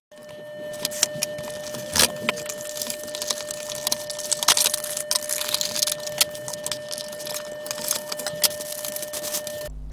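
Cardboard packaging being handled and pulled apart: rustling and scraping with sharp cracks and clicks, the loudest about two seconds in and again midway. A faint steady whine runs underneath until just before the end.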